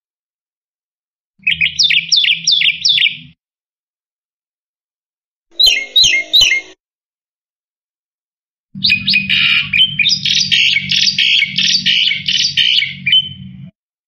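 Black-winged myna (jalak putih) singing in three bursts of rapid, repeated high notes. The last burst is the longest, about five seconds.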